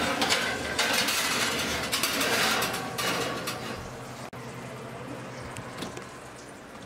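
A ceramic baking dish holding a foil lasagna tray scraping and rattling as it is slid onto a metal oven rack and the rack is pushed in. The scraping is loudest for the first three seconds, then dies down.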